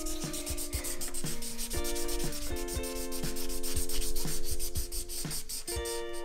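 Felt-tip marker scribbling back and forth on paper, quick scratchy rubbing strokes several times a second, as an area is coloured in.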